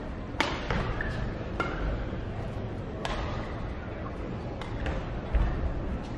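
Badminton rackets hitting the shuttlecock in a fast doubles rally: sharp cracks about every one to one and a half seconds, with short shoe squeaks on the court mat between the hits.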